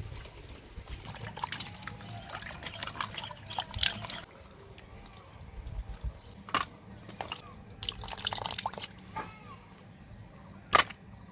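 Cut pieces of katla fish being washed by hand in water, splashing and dripping in irregular bursts, with one louder sharp splash or knock near the end.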